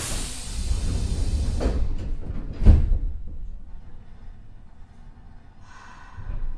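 Nagoya Municipal Subway 3000 series train's doors closing: a sharp hiss of air from the door engines that dies away over a second or so, then the doors thudding shut a little under three seconds in.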